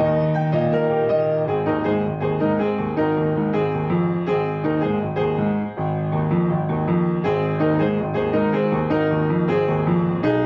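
Baldwin grand piano played solo: a continuous run of notes in both hands, with only a momentary dip in loudness about six seconds in.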